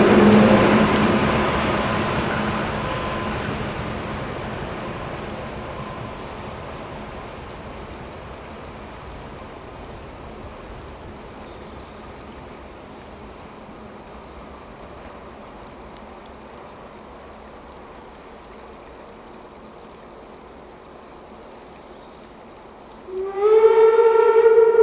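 Passenger train with a DR class 110 diesel locomotive at its rear rolling past and fading away over about ten seconds. Near the end, a loud steady pitched tone with several overtones starts abruptly.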